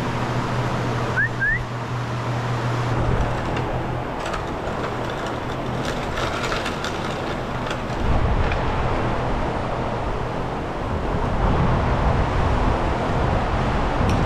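Farm machinery engine running steadily, with clanks and rattles, growing louder about eight seconds in; two short rising squeaks about a second in.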